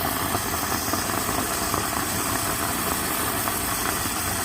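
Automatic espresso machine running with a steady mechanical hum and hiss while it dispenses milk into the coffee.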